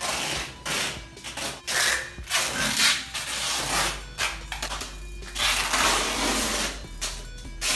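Duct tape being pulled off the roll and wound round a person in a run of long rips, about six of them, each lasting from half a second to a second and a half.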